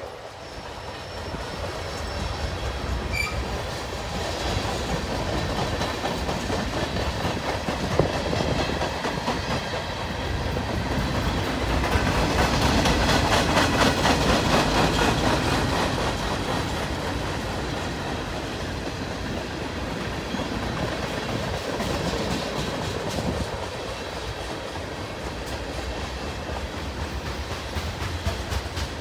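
Freight cars of a long manifest train rolling past: a continuous rumble with the clickety-clack of steel wheels over the rails. It grows louder about halfway through, then eases off a little.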